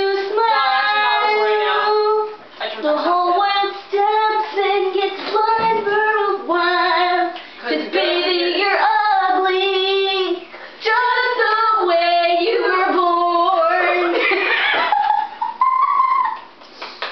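A teenage girl singing unaccompanied in a high voice, holding drawn-out notes with swooping pitch in short phrases.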